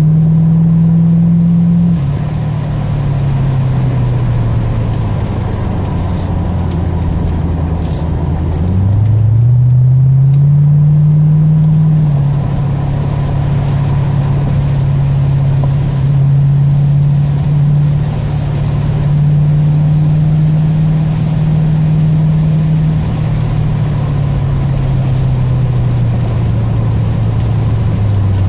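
C4 Corvette's V8 engine heard from inside the cabin on a hot lap. The revs drop about two seconds in and stay low for several seconds. They climb again from about nine to eleven seconds, hold fairly steady, then ease off near the end.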